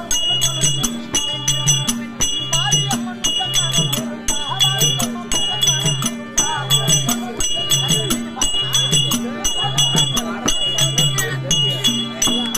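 Therukoothu folk-theatre music: jingling cymbals or bells and a drum keep a steady, fast rhythm, with a wavering melody line above.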